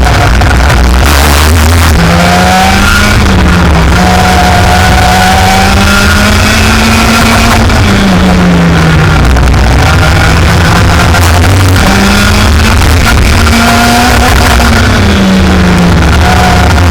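Music playing over a racing kart's engine, whose pitch repeatedly climbs and drops back as it revs up and down.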